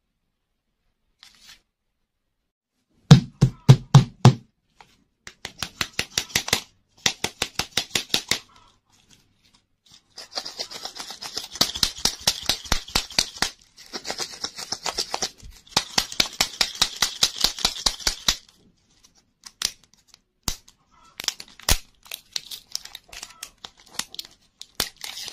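Plastic twist toy clicking sharply as its segments are turned, in quick runs of clicks, then foil wrapper crinkling and tearing for several seconds as a plastic surprise egg is unwrapped, with scattered clicks and crackles near the end.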